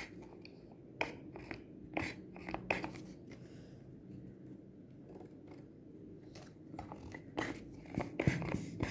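A few scattered light clicks and taps from handling a bottle of soap while it is squeezed into glue for slime, with a cluster of them near the end, over a faint steady hum.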